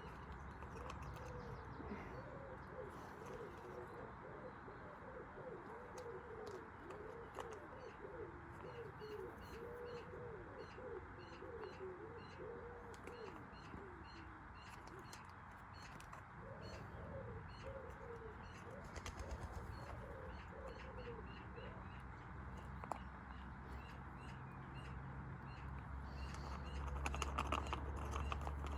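Pigeons or doves cooing in a long run of low, wavering calls that pause for a couple of seconds halfway through, with small birds chirping faintly and a steady low hum underneath.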